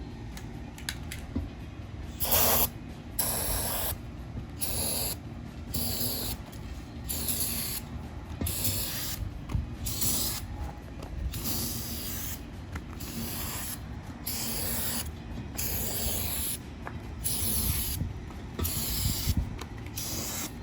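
Aerosol can of brake parts cleaner sprayed in a long series of short hissing bursts, about one a second, into the gap between a tire bead and the rim. The spray is the fuel for igniting to pop the bead onto the rim.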